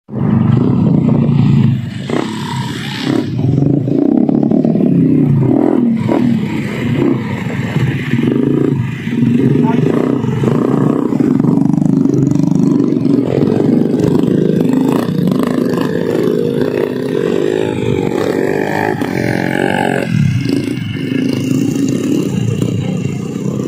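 Trail motorcycle engines revving unevenly, the pitch rising and falling as the bikes labour through mud under loads of grain sacks.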